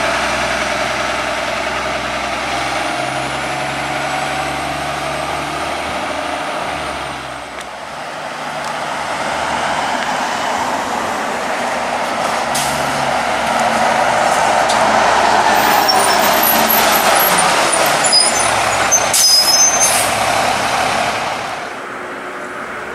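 Orion VII city buses: first one pulls away with a steady engine hum. After a cut a second bus approaches and passes close, its engine and tyre noise growing louder, with a few sharp clicks and brief high squeaks as it goes by.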